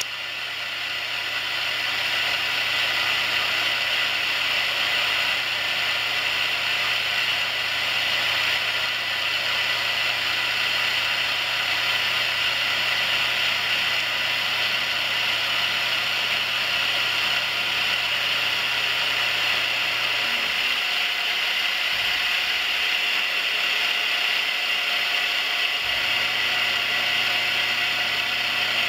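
4-axis CNC mill's end mill cutting along a metal bar held in a vise, with a steady cutting noise as chips fly off. A low hum beneath it stops for about five seconds near the end and then comes back.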